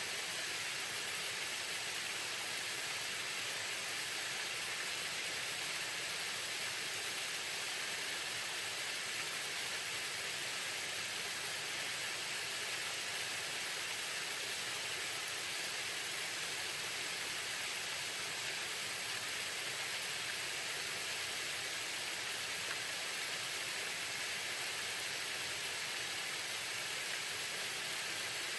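Waterfall: water falling and splashing, a steady even rush heavy in the upper range.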